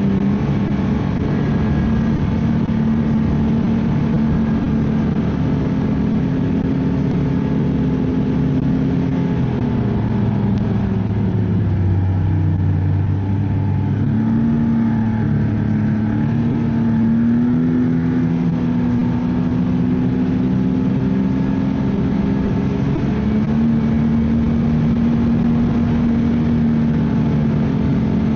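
Ski-Doo snowmobile engine running steadily under way, easing off about ten seconds in to a lower note and then speeding up again a few seconds later.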